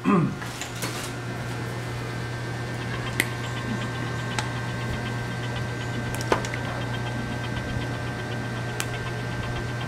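A few faint, sharp clicks spread over several seconds as needle-nose pliers bend and twist a thin wire lead, over a steady low hum.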